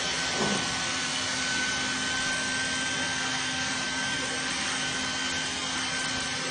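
Corded electric hair clippers running steadily as they cut hair, a constant buzz with a thin high whine.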